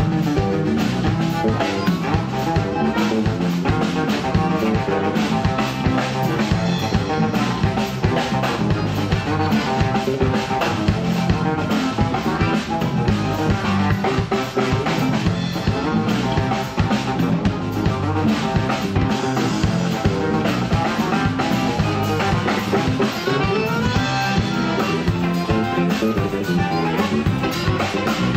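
Live band playing an instrumental passage on accordion, hollow-body electric guitar, electric bass and drum kit, with a steady driving beat.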